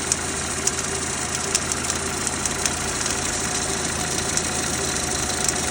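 Renault Duster's 2.0 F4R four-cylinder petrol engine idling cold, with sharp, irregular knocks, about two a second, over the running. This is the knock that comes for about two minutes after a cold start and then stops until the next morning, its cause unknown to the owner.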